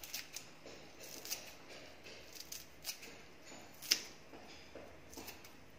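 Faint crisp clicks and rustles of fresh coriander leaves being handled and dropped over a pot of sambar, scattered irregularly, with one sharper click about four seconds in.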